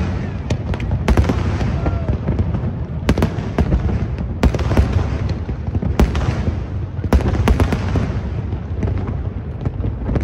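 Aerial fireworks display going off in rapid succession: sharp bangs and crackles from shells bursting, several standing out louder, over a continuous low rumble of overlapping booms.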